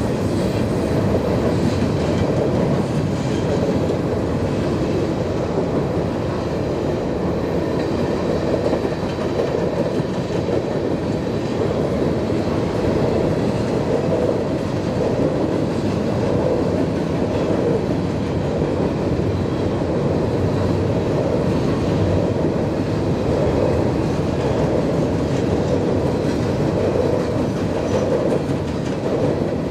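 CSX freight train passing at speed on the mainline: a steady, unbroken rolling noise of its cars' steel wheels on the rails.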